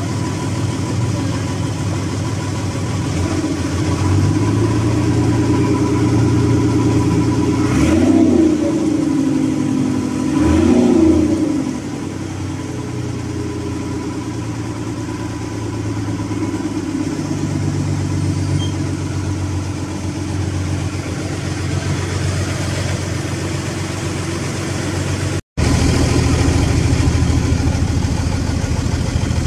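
Boat engine running steadily, heard from on board the moving boat. About a third of the way in, two brief rising-and-falling sounds rise over it, and near the end the sound cuts out for an instant.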